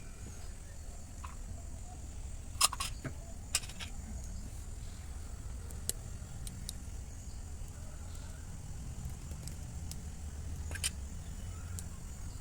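A few sharp clicks and taps, the loudest about two and a half seconds in and another near the end, over a steady low rumble and a faint high-pitched whine.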